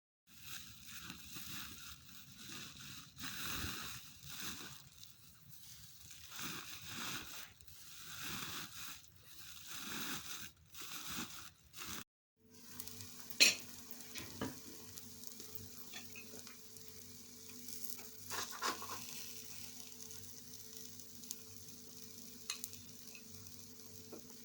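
Food sizzling and being stirred in a pan, in irregular bursts of noise. About halfway through it cuts to a steady low hum with a few sharp clicks.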